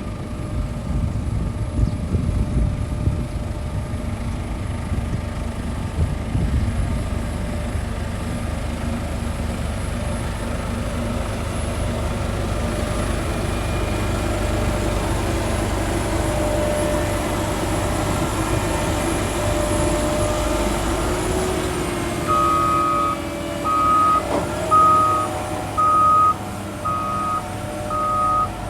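Heavy diesel earthmoving machinery running with a steady rumble. About three-quarters of the way through, a reversing alarm starts beeping at about one beep a second, the sign of a machine backing up.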